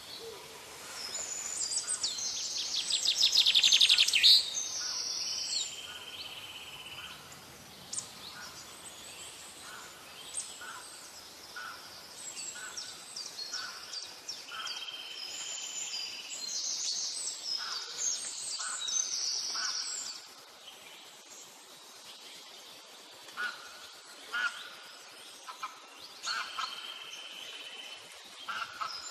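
Several birds chirping and singing, with short repeated whistled notes and trills. The loudest part is a fast run of repeated notes that grows louder about two to four seconds in.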